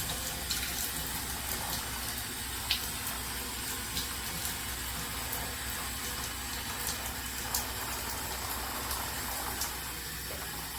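Water running steadily through a KAIYING handheld shower head into a bathtub. The head is faulty: little or nothing comes out of the spray face, and the water escapes from the wrong place instead.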